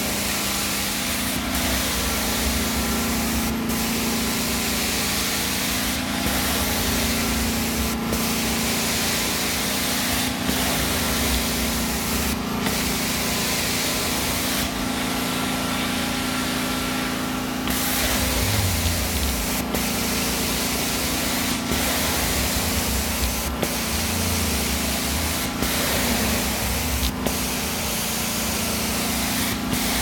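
Carpet steam-cleaning (hot-water extraction) wand working across carpet, the machine's spray and vacuum running with a steady hiss over a constant hum. A short sharp click comes about every two seconds.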